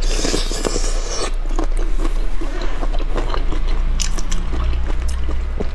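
A person biting into a skewer of shrimp in chili sauce, loudest in the first second or so, then chewing with scattered small clicks.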